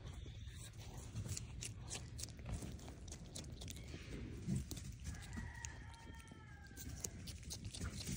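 Striped skunk chewing a piece of red bell pepper: faint, irregular crunching and smacking clicks. A high, drawn-out call, falling slightly in pitch, sounds in the background from about five to seven seconds in.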